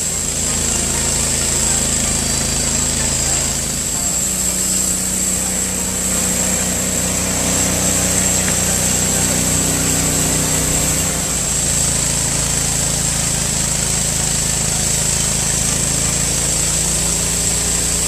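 TimberKing 1220 portable band sawmill running steadily as its band blade cuts through a green ash log, the engine note shifting slightly about two-thirds of the way through.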